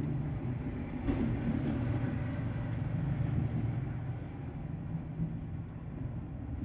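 A steady low rumbling hum, with a brief noisy clatter about a second in.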